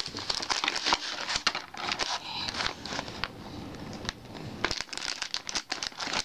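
Crinkly foil snack bag rustling and crackling as it is handled and cut open with scissors.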